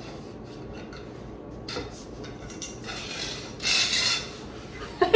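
Plastic wrapping rustling and rubbing as it is pulled along a metal telescopic mop handle to strip it off, with one louder crinkle about three and a half seconds in.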